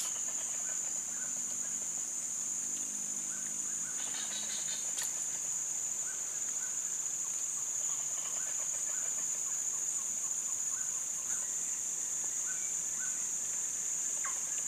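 Steady high-pitched drone of insects in a swamp forest, with scattered short bird chirps over it.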